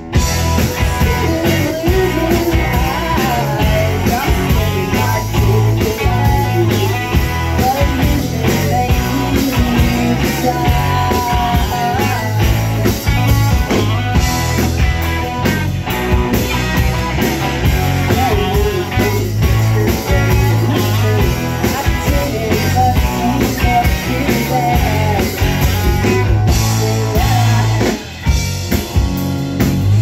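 Rock band playing live: electric guitars, bass guitar and drum kit, with lead vocals over the top.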